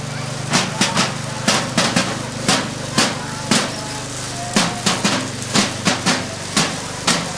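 Festival percussion: sharp strikes in an uneven rhythm, about two a second with a short break near the middle, over a steady low hum.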